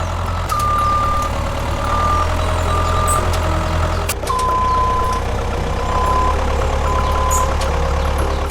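Heavy vehicle's reversing beeper beeping about once a second over a steady, deep engine rumble; the beep drops a little in pitch after about four seconds.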